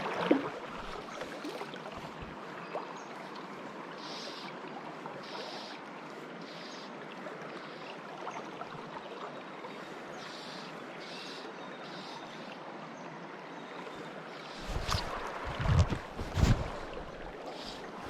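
A river rushing steadily, an even wash of flowing water. About fifteen seconds in, a few loud, low thumps break in over it.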